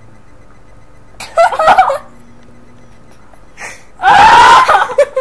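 A girl's squealing laughter and gasps: a short burst about a second in, then a louder, longer shriek near the end.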